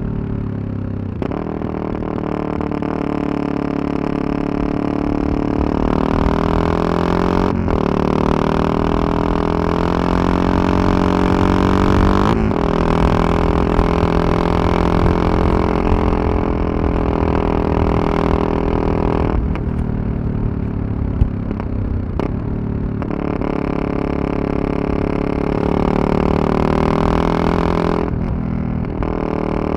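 Yamaha MT-03 660's single-cylinder engine running under way. Its pitch climbs and drops several times as it pulls through the gears, with brief breaks at each shift. Wind rumble on the microphone sits underneath.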